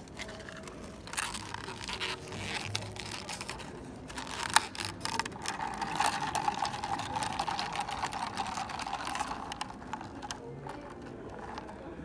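Ice cubes clinking and rattling against a clear plastic cup as an iced coffee is stirred with a plastic straw, with a sharp clack about four and a half seconds in and a stretch of steady scraping after it.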